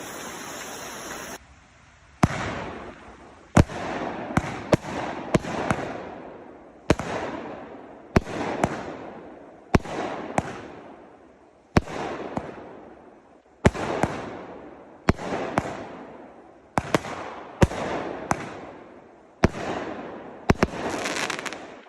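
A 500 gram multi-shot firework cake firing its shots one after another, each a sharp bang followed by a fading crackling hiss, spaced about one to two seconds apart. A steady hiss comes before the first shot about two seconds in.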